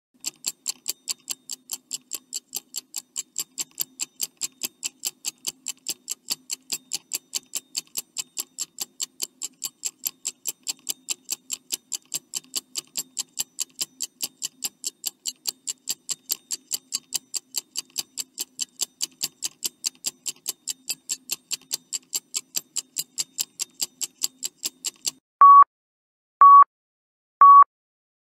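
Countdown timer sound effect: a clock ticking fast and steadily. The ticking stops near the end, and three short, loud, high beeps follow about a second apart, counting down the last seconds.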